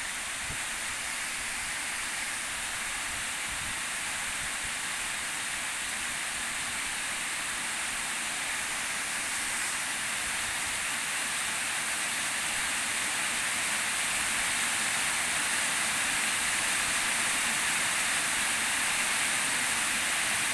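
Heavy rain falling, a steady hiss that grows gradually louder.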